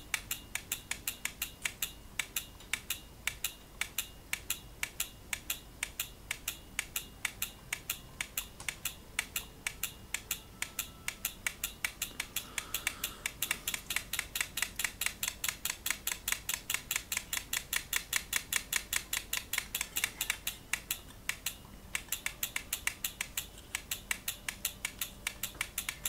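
VISOMAT BWS2 photocell exposure timer's electromechanical stepping mechanism clicking in a steady rhythm, about three to four clicks a second. The clicks come faster in the middle as the photocell is brought toward a light, since more light makes it click faster. There is a brief pause a little after two-thirds of the way through.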